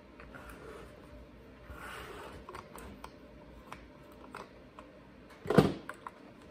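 Handling noises on a bare Echo chainsaw powerhead at a workbench: light clicks and rustling as it is worked on, then one sharp knock about five and a half seconds in.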